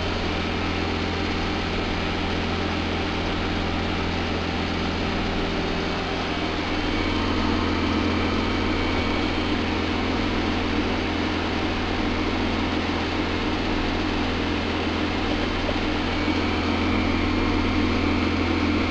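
Hyundai Sonata's 2.7-litre V6 idling steadily with a low hum, the A/C switched on while the system is charged with refrigerant from a can.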